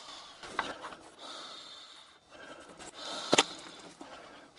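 Wooden parts of an all-wood machine knocking and rubbing as a section is fitted back into its frame, with a small knock about half a second in and a sharp double wooden click about three and a half seconds in.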